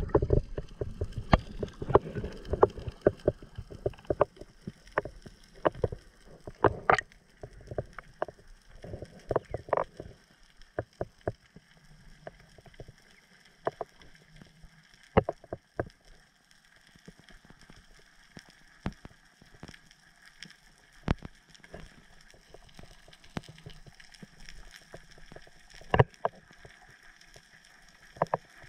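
Muffled underwater sound picked up by a camera in a waterproof housing during a spearfishing dive: irregular clicks and knocks, frequent in the first ten seconds and sparser after, over a faint steady hum.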